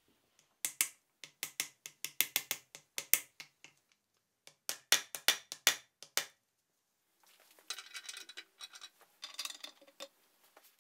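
Small ball-pein hammer tapping a driver to seat a new pinion oil seal into a Land Rover Series 3 differential nose: two runs of quick, sharp taps, about four a second. Then a few seconds of light metal rattling and scraping.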